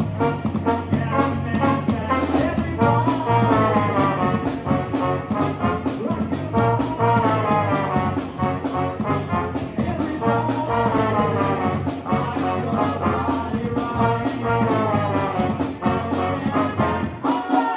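Live band with trombone and a second horn leading, electric guitar and a steady beat underneath. The horns play repeated falling phrases.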